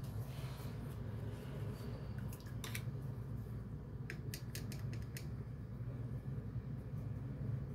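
Steady low hum, with a few light clicks about two and a half seconds in and a quick run of four or five clicks around the middle.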